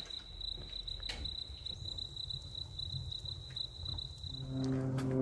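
A cricket chirping in a steady, pulsing high trill, with a few faint crackles from a freshly lit wood fire in a metal chimenea. Soft music comes in near the end as the trill stops.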